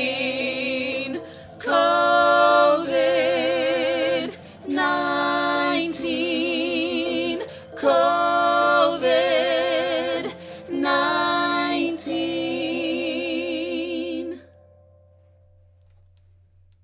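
Sung vocals closing the song: four phrases, each starting strongly and ending in a long held note with vibrato, over a steady low bass note. The singing stops about fourteen seconds in, leaving only a faint low tone that fades out.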